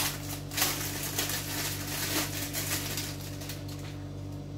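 Thin plastic bag crinkling and rustling as a case is pulled out of it by hand. The crinkling is busiest in the first two seconds or so and thins out near the end.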